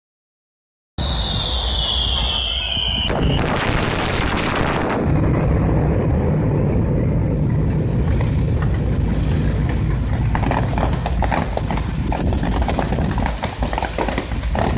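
Fireworks: a whistling shell's whistle falling in pitch, then a burst with a loud crackling hiss that lasts about two seconds, then a continuous low rumble of explosions. From about ten seconds in, dense rapid crackling sets in.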